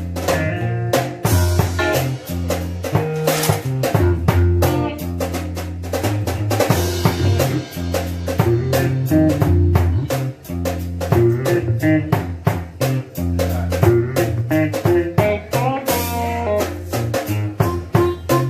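Live blues band playing: electric guitar over a drum kit keeping a steady beat, with a low bass line stepping underneath.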